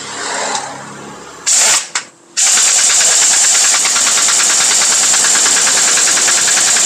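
Heavy-duty pneumatic impact wrench hammering on a truck wheel's lug nuts: a short burst about a second and a half in, a brief blip, then a continuous rapid hammering from about two and a half seconds on.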